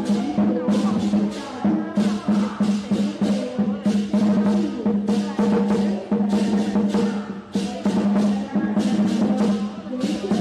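Lion dance percussion: a drum beating with crashing cymbals in a steady rhythm, over a sustained low ringing tone.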